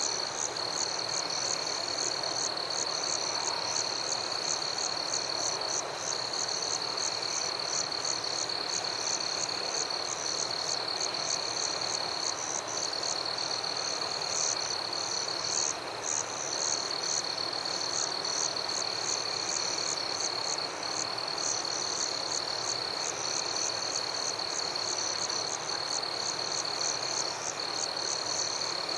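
Night chorus of frogs and insects: a steady high trill with rapid pulsing chirps above it, over a constant hiss.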